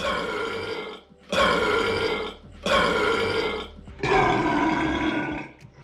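A person belching: four long, loud burps in quick succession, each lasting about a second.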